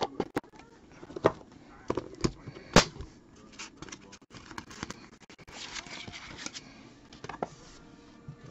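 Trading cards and their plastic holders being handled: several sharp clicks and taps in the first three seconds, a rustling slide a little after the middle, and one more click near the end.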